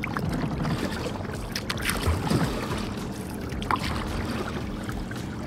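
Water splashing and lapping against a kayak's hull as it moves along the river, with a few sharper splashes around two seconds in.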